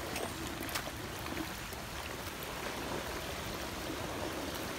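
Floodwater of a storm-swollen creek running over a submerged culvert: a steady watery rush.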